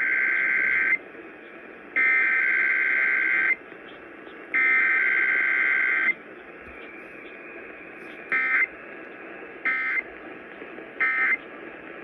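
Emergency Alert System SAME data tones, a harsh two-tone digital screech: three header bursts of about a second and a half each, then three short end-of-message bursts. No long attention tone comes between them. A steady background hiss runs between the bursts.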